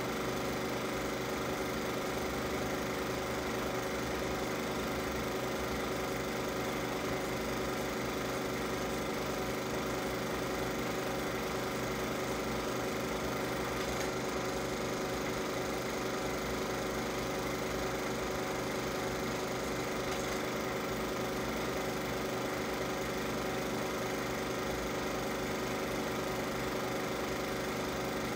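Film projector running steadily: a constant mechanical whir with a fast, even flutter from the motor and film transport.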